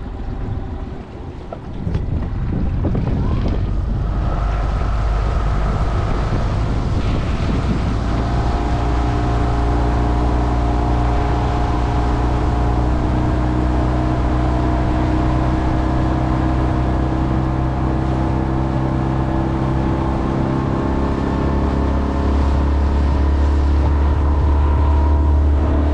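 Outboard motor on a small inflatable boat throttled up gradually to get on plane. Over the first few seconds it rises in pitch and loudness, then runs steady at part throttle, a little louder near the end, with wind on the microphone.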